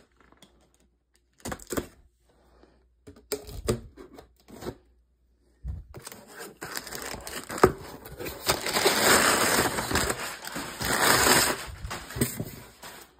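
Corrugated cardboard shipping box being opened by hand: a few scattered taps and scrapes, then several seconds of continuous scraping and rustling of cardboard and packing tape as the flaps are pulled open, loudest near the end.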